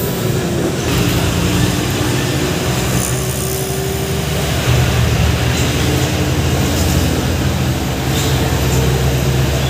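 Cabin noise inside a moving Ashok Leyland BS6 city bus: the engine runs steadily while under way, with road noise.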